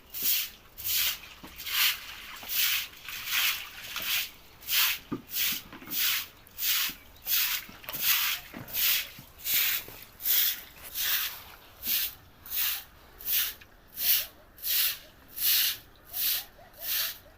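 Rhythmic scraping strokes, about three every two seconds, each a short rasp that rises and fades.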